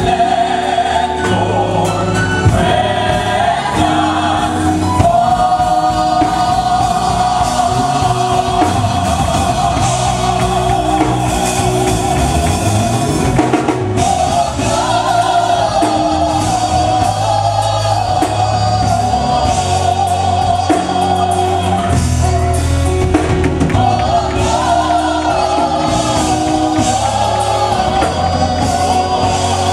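Gospel choir singing over a band with bass and drums, with long held, wavering notes.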